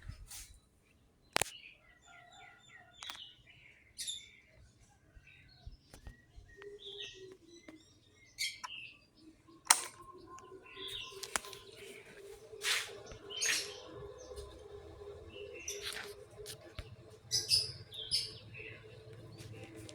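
Birds chirping on and off, with short sharp clicks among the calls. A steady low hum joins them about seven seconds in.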